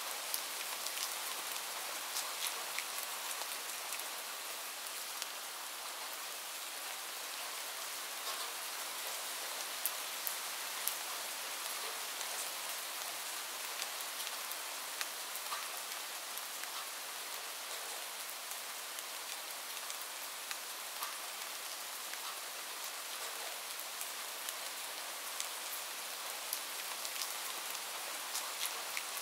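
Steady rain: an even hiss with a scatter of small drop ticks throughout.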